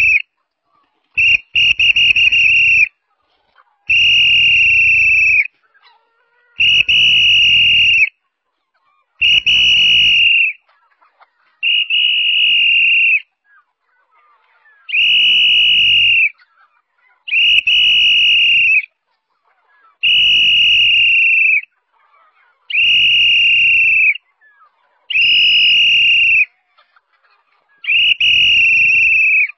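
A whistle blown in long, steady, high-pitched blasts of about a second and a half, repeated every two to three seconds, calling a flock of chickens in.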